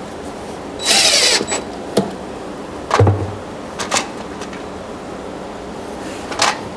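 DeWalt cordless drill briefly driving a screw to fasten a metal drawer slide, a high-pitched whir lasting about half a second. Then a click, a heavier knock near the middle, and two more light clicks, as the drill is set down and the steel ball-bearing slide is handled, over a steady shop hiss.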